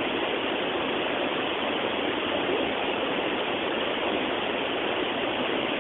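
Shiraito Falls rushing steadily: many streams of Mount Fuji spring water pouring out from between layers of rock and splashing into the pool below.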